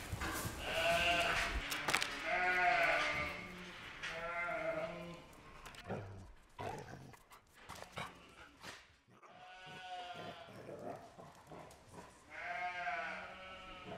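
Sheep bleating: about five quavering bleats, each about a second long, with a quieter gap of a few seconds in the middle.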